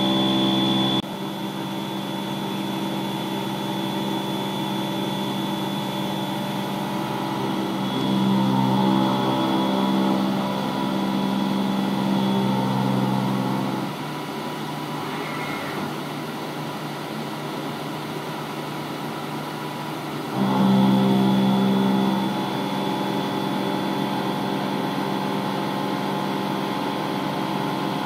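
Haas VF-6 50-taper CNC mill's spindle and milling cutter cutting 4140 pre-hardened steel under flood coolant, a steady machine hum and cutting note over coolant spray hiss. The cutting note drops about a second in, strengthens around 8 seconds, eases off around 14 seconds and comes back loudest around 20 seconds as the cut's load changes.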